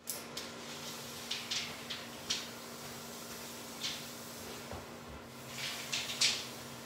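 Workshop room tone with a steady low hum, broken by a few short, faint scuffs and rustles of someone moving about and handling things.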